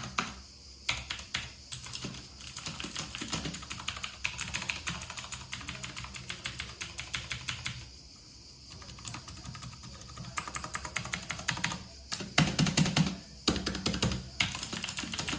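Typing on an Ajazz AK33 mechanical keyboard with blue switches: fast runs of loud clicking keystrokes, with a short pause about halfway through.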